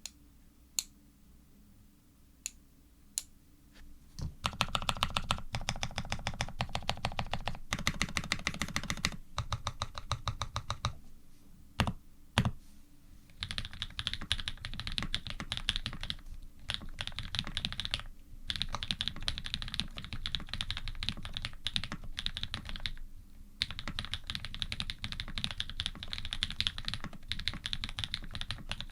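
Iron180 custom mechanical keyboard being typed on, with Krytox-lubed switches built from Cherry housings and Cream stems, a carbon plate and GMK keycaps. A few single keystrokes come first, then fast continuous typing broken by short pauses, with two louder single strokes near the middle.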